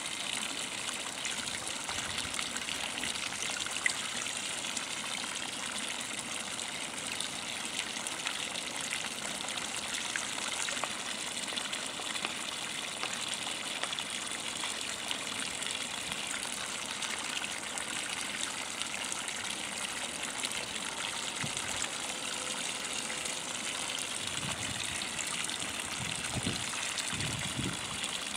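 Thin water streams from a bronze fountain sculpture splashing steadily into its shallow pool.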